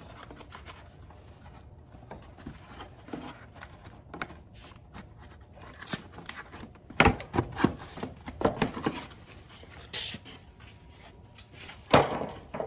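A tight cover being pried and worked loose from an ATV's front end: scattered clicks, knocks and scrapes, with a cluster of louder clatters past the middle and one loud knock near the end.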